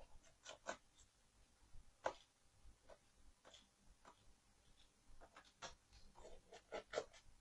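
Faint, irregular small clicks and ticks from a laptop being worked on with small tools while it is opened for a memory and SSD upgrade.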